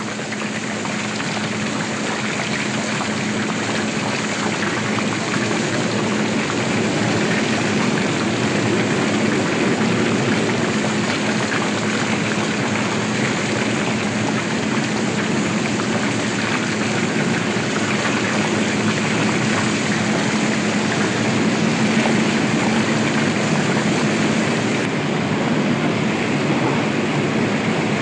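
Steady industrial noise with a low hum from a blast furnace being tapped, its molten iron running through channels into ladles. It grows louder over the first several seconds, then holds.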